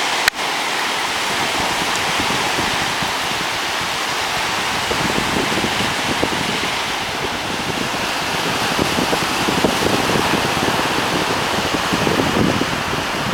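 Small surf breaking and washing up a sandy beach, a steady rushing hiss. Gusts of wind buffet the microphone in the second half, growing toward the end, and there is a brief click just after the start.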